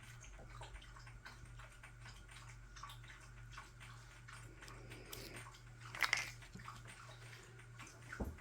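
Faint handling sounds of resin being spread by hand over a small cup: soft scattered ticks and rubbing, with a louder scrape about six seconds in, over a steady low hum.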